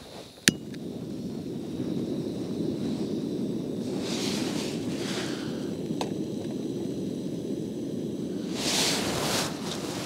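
Camping gas canister stove lit with a sharp click, then its burner running with a steady rushing noise. About six seconds in a metal clink as a small coffee pot is set on the burner, with brief rustles around it.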